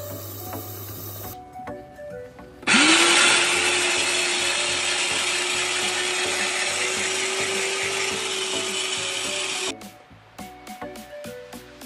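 Electric grater's motor starting with a quick rising whine, then running steadily for about seven seconds as it shreds food, and stopping.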